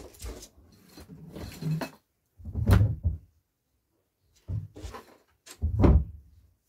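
Dull thumps and knocks as things are handled and set down around a sofa, three heavier ones a second or two apart with lighter knocks between.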